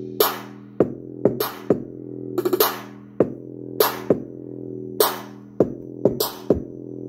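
Electronic dance music with a drum-machine beat, played through a small homemade Bluetooth speaker with a single 40 mm 5 W driver; sustained synth notes with regular drum hits, and almost no deep bass.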